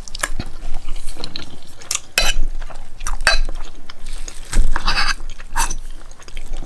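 Eating sounds: cutlery against a dish and wet mouth noises, in several short bursts.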